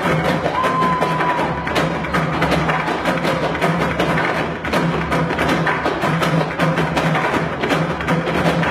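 Live percussion ensemble drumming a fast, dense rhythm of sharp strikes, with a steady low drone underneath.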